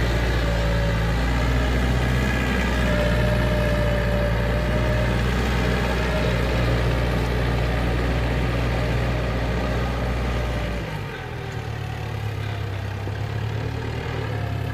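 An engine running steadily; about eleven seconds in its low rumble drops away and it turns a little quieter.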